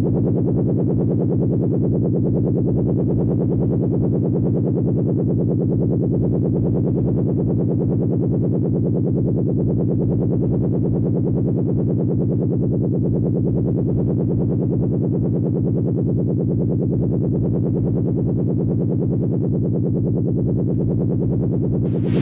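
Synthesized electronic sound effect: a low, steady buzzing drone with a fast pulsing texture, held unchanged throughout.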